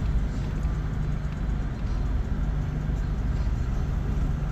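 Car engine and tyre noise heard from inside the cabin while driving: a steady low rumble with a constant low hum.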